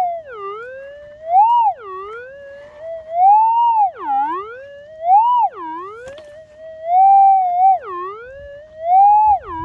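Metal detector with a 15x10 X-Coil giving its audio tone: a steady hum that swoops up and dips down about five times as the coil is moved over the freshly dug hole. The wavering is the detector's signal from a buried metal target.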